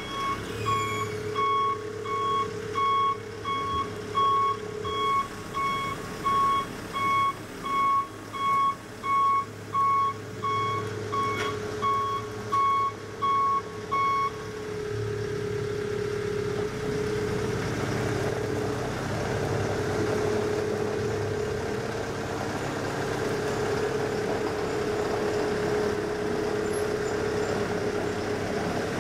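Genie GTH-844 telehandler's backup alarm beeping a little faster than once a second while the machine reverses, over its diesel engine running. The beeping stops about halfway through, and the engine keeps running, a little louder, as the telehandler drives off forward.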